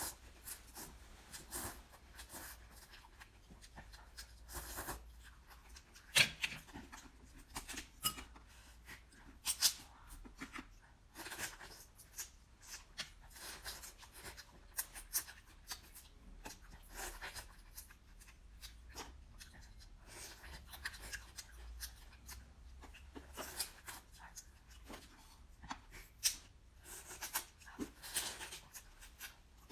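Close-miked eating sounds from a seafood boil: irregular soft clicks, crackles and wet snaps of chewing seafood and handling shells, a few sharper snaps standing out.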